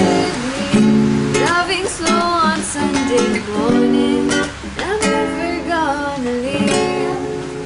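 Acoustic guitar strummed in steady chords, with a voice gliding up and down over it without words in a break between sung lines.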